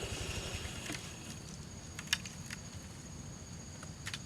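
Low rumble of an idling engine, likely a motorcycle, with a few light clicks about two seconds in and near the end.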